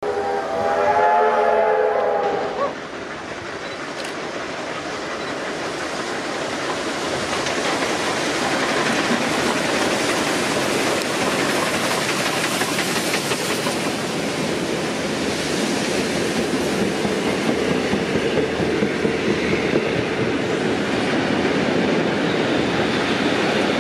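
A train whistle sounds for about two and a half seconds at the start, several notes together. Then a steam locomotive hauling a rake of vintage carriages runs past, its running and wheel-on-rail noise building over several seconds and then holding steady.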